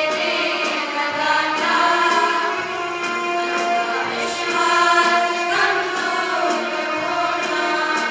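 A group of voices singing a song in held notes over instrumental accompaniment with a steady beat.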